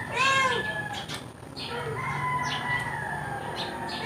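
Cat meowing: one short rising-and-falling meow at the start, then a long drawn-out call lasting about a second and a half in the middle.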